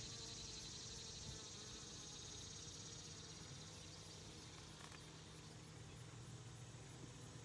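Faint, steady buzzing of honey bees around an open hive frame.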